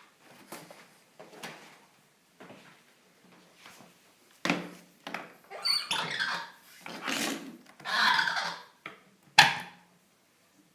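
Irregular handling noises: scrapes, rustles and knocks, louder in the second half, with one sharp knock near the end.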